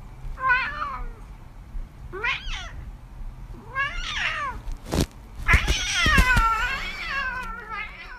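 A domestic cat meowing several times, the last meow long and drawn out, with a sharp knock shortly before it.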